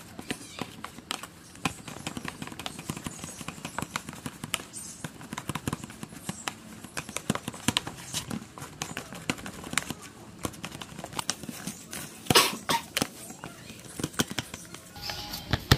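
Irregular clicks and light knocks of kitchen utensils and containers being handled, a few a second, with a louder flurry about twelve seconds in.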